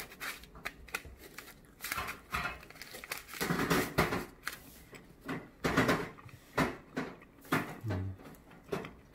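Close-up mouth sounds of someone biting into and chewing a hot, chewy pan-fried potato rice cake, in irregular wet bursts that start about two seconds in.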